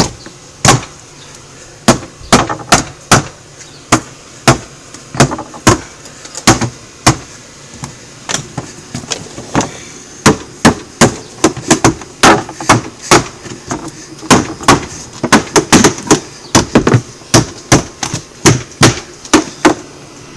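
Hammer driving nails into the wooden porch framing: a few spaced blows at first, then quick runs of strikes from about halfway through.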